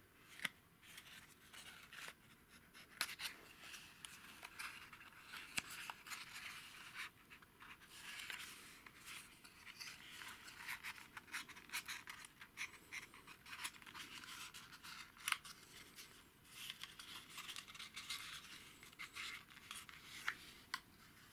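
Small paperboard tube carton handled close up: dry rustling and scraping of card with many sharp little ticks as the end flap is opened and the vacuum tube is slid out.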